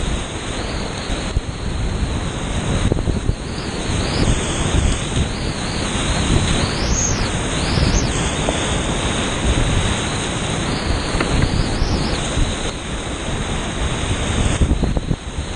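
Big-water whitewater rapid on the Rio Grande running at high flow, rushing and crashing around a kayak as a loud, steady roar, heard close up with water splashing on the microphone.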